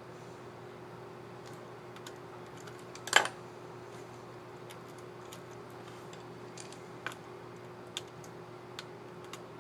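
Asus X555QA laptop keycap and plastic scissor mechanism clicking as the key is handled and pressed. One sharp snap about three seconds in, then a few lighter clicks.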